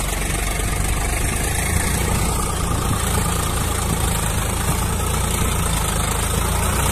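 Swaraj 744 FE tractor's three-cylinder diesel engine running steadily as it tows a loaded trolley through a muddy paddy field.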